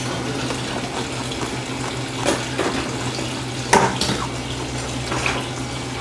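Close-miked wet chewing and mouth sounds of eating abalone rice porridge, with two sharp clicks about two and four seconds in.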